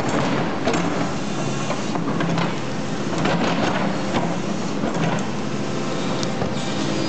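Doosan crawler excavator's diesel engine running steadily under load while its toothed bucket scrapes and digs into soil, with irregular crunches and clatter of earth and stones against the bucket.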